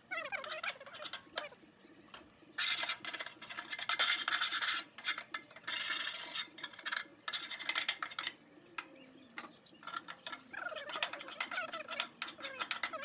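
Metal spatula scraping caked-on grease from the bottom of a Weber Genesis II gas grill's firebox, in bursts of rapid rasping strokes, loudest in the middle of the stretch, with short squeaks of metal sliding on metal near the start and near the end.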